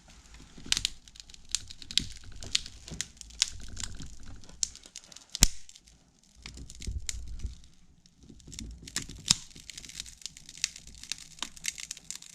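AT&T Calypso phone's cracked glass and plastic body crackling and snapping irregularly as it is slowly bent by hand, with one loud sharp snap about five and a half seconds in.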